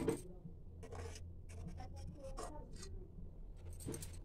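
Faint scraping and light clinks of a fork against the pan as boiled besan rolls are lifted out of the water, several short strokes spread through, over a steady low hum.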